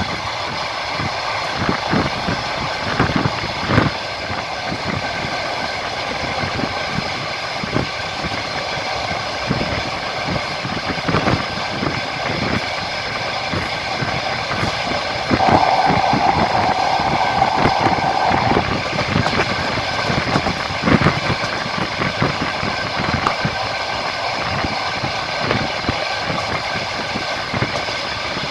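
Moving train heard from inside the carriage: a steady rumble and hum with the wheels knocking over the rail joints. About halfway through a louder steady tone sounds for about three seconds.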